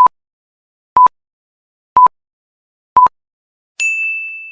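Electronic countdown-timer beeps: four short identical beeps, one a second, then near the end a longer, higher ding that fades away.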